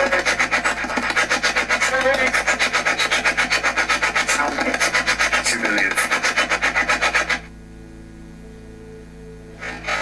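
SBox spirit box sweeping through radio stations: rapid choppy bursts of static and radio fragments, about six a second. About seven seconds in the sweep stops and a much quieter hum is left, and the sweep starts again just before the end.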